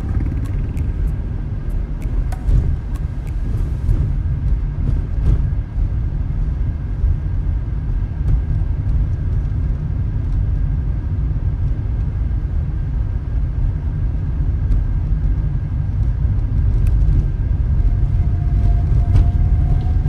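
Steady low rumble of a car driving, with road and running noise and a few light ticks in the first few seconds.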